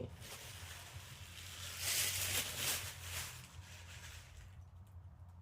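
Rustling, brushing handling noise lasting about a second and a half, starting about two seconds in, over a low steady hum.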